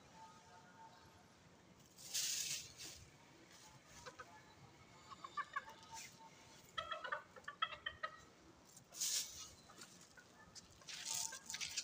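Kate bantam chickens clucking with a series of short, soft calls around the middle. A few brief bursts of rustling hiss come in near the start and again near the end.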